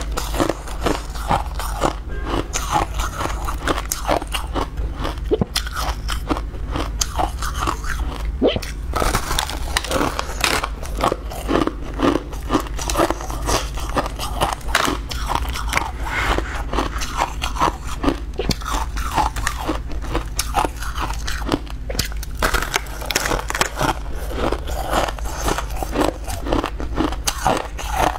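Compacted crushed ice bitten and chewed: dense, irregular crunching and crackling of ice between the teeth, bite after bite.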